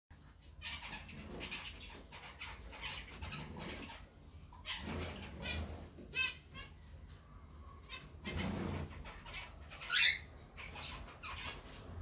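Male cockatiel calling in the cage with short chirps, one buzzy call about halfway through and a loud sweeping whistle near the end, the male's call to draw the female into the nest box. Fluttering and rustling between the calls.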